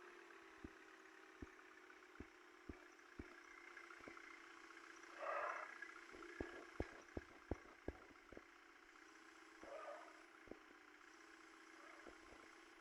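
Faint vehicle engine running steadily, with scattered sharp clicks, a quick run of clicks past the middle, and a brief louder rush of noise about five seconds in and again near ten seconds.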